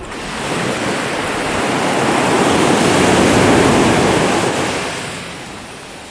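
Pacific Ocean wave breaking and washing up the beach: a rush of surf that starts suddenly, swells for about three seconds and then fades away.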